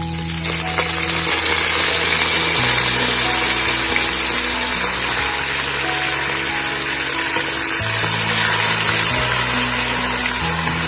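Fresh mint and cilantro sizzling steadily in hot ghee and coconut oil with roasting whole spices.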